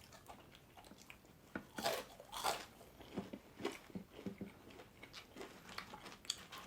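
Close-up eating sounds: a person biting and chewing crispy french fries, with irregular crunches, two louder ones about two seconds in.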